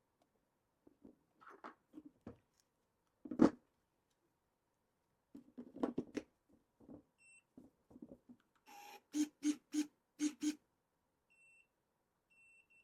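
Electric pruning shear being handled: scattered clicks and knocks of the tool and its parts, one much louder knock. Later come five quick sharp snaps, about three a second, and a few faint short high beeps.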